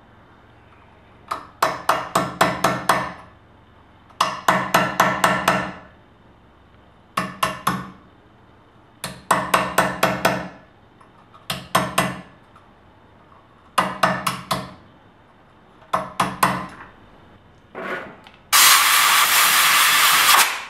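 Ball-peen hammer tapping a small chisel against cast iron in quick runs of several ringing metal strikes, with short pauses between runs, chiseling the leftover thread coil of a burned-out 3/8 bolt out of a manifold hole. Near the end comes a loud steady hiss lasting about two seconds.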